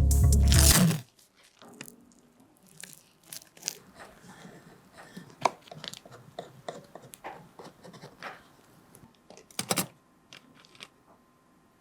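Background music cutting off about a second in, followed by scattered faint clicks, taps and crackles of handwork, with one louder short rustle near the end.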